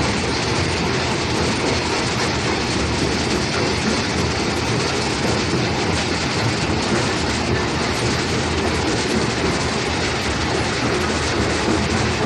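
200 TPH stone-crushing plant running with rock going through it: the crushers, vibrating screen and belt conveyors make a loud, steady mechanical din.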